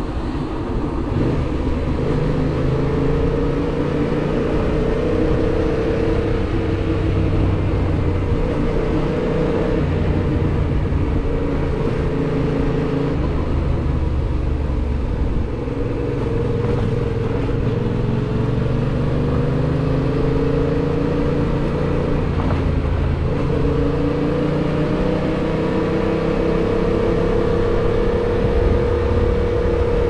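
Yamaha MT-07's parallel-twin engine running under way at road speed, its pitch rising and falling as the throttle opens and closes. Its note drops briefly about halfway through, then climbs again.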